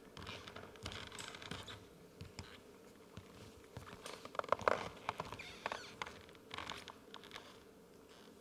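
Faint rustling and scattered clicks of audience members handling cardboard answer cards, busiest about halfway through.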